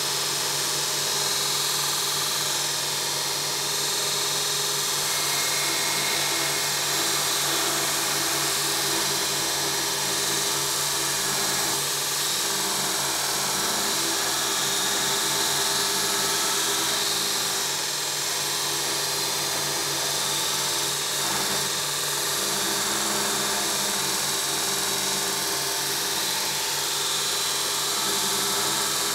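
2x42 belt grinder running steadily with steel being ground on the abrasive belt: a continuous loud hiss of abrasive on metal over the steady hum of the motor and belt.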